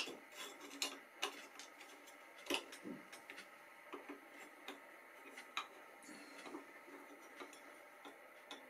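Irregular small metal clicks and taps as the lamp bracket and ceramic lamp socket of a Super 8 projector are handled and fitted, with one sharp click right at the start.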